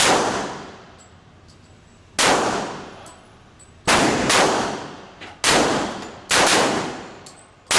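Six gunshots fired one after another, spaced one to two seconds apart, each followed by a long echoing decay.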